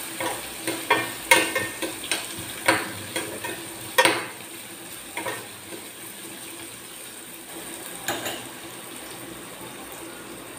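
A steel spoon scrapes and clinks against a stainless steel pan as chopped shallots are stirred in hot oil, over a steady frying sizzle. The strokes come thick in the first half, then thin out to one more scrape a little past the middle, leaving mostly the sizzle.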